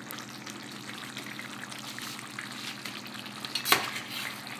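Tomato-based chicken stew simmering in a metal pot, a steady crackling bubble. About three-quarters of the way through, one sharp clink as a spoon strikes the pot to start stirring.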